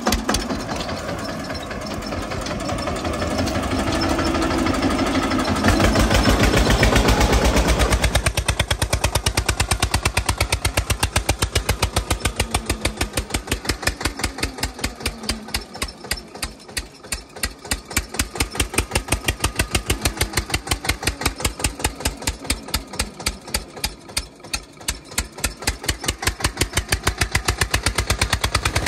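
Eicher 242 tractor's single-cylinder diesel engine running, louder for a couple of seconds about six seconds in, then settling into a slow, even chug with each firing stroke heard separately as the tractor works through deep mud.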